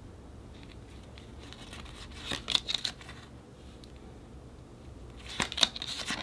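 Packaging being handled and opened by hand: crinkling, rustling noise in two short clusters, about two and a half and five and a half seconds in, with a few fainter rustles before them.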